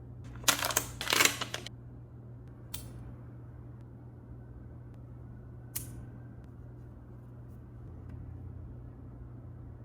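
Product packaging being handled: two loud rustling scrapes about half a second and a second in, then two brief clicks near three and six seconds in, over a steady low hum.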